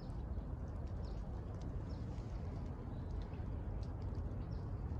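A small bird chirping repeatedly, short falling notes about once a second. Beneath it is a steady low rumble of outdoor background noise.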